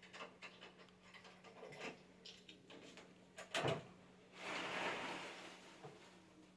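Clicks and rattles of the wire-mesh door on a ticket drum being unlatched, with a sharp clack about three and a half seconds in as it opens, then a rustle of folded paper tickets as a hand rummages inside the drum to draw one.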